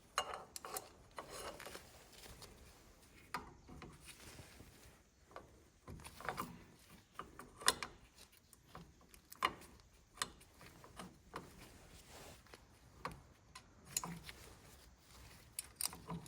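Hand work on metal parts: scattered clicks, clinks and light knocks of tools and parts being handled, irregular.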